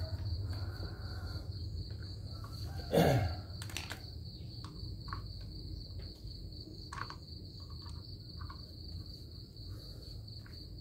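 Steady high, pulsing cricket chirping in the background, with a few light clicks from hands handling the brush cutter's plastic air filter cover. About three seconds in comes a brief louder sound that falls in pitch.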